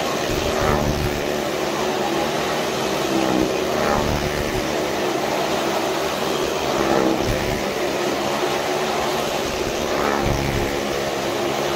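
Several motorcycles riding round the wooden wall of a well-of-death drum, their engines running hard and steadily, swelling about every three seconds as a bike sweeps past close by.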